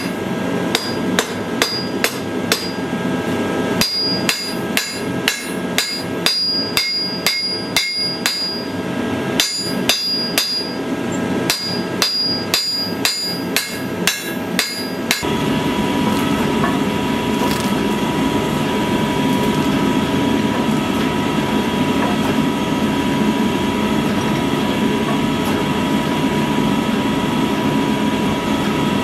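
Hand hammer striking hot steel on an anvil while forging a knife, about two to three blows a second with a bright metallic ring after each and a short pause about three seconds in. About halfway through the hammering stops and a steady noise with a faint hum takes over.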